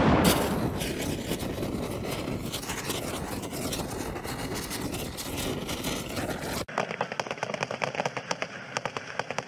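A loud rumbling noise fades away over the first seconds into a dense crackle. About seven seconds in it cuts to the rapid crackling and popping of fireworks.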